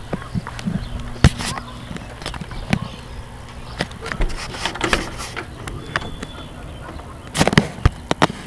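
Scattered sharp clicks and knocks, several close together near the end, over a steady low hum.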